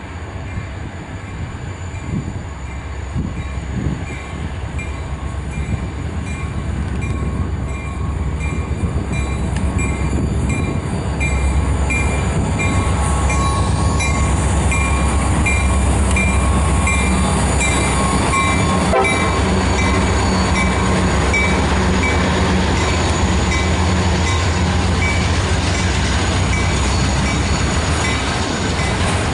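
Diesel-electric freight locomotives approach and pass, their engines growing louder over the first ten seconds or so. Then comes a steady rumble and rattle as the train of autorack cars rolls by on the rails.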